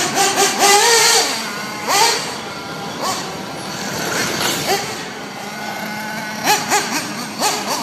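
Radio-controlled cars' motors revving in short rising bursts, with a quick run of throttle blips near the end.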